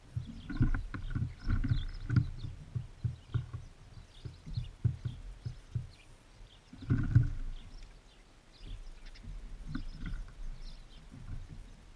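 Birds feeding at a bird feeder right beside the camera: irregular dull taps and thumps of beaks and feet on the feeder and seed, with a louder flurry about seven seconds in, and faint short chirps.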